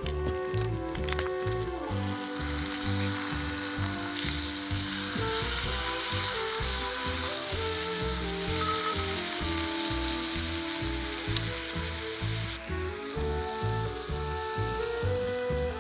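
Pork belly sizzling on a grill pan, under background music with held notes and a steady low beat.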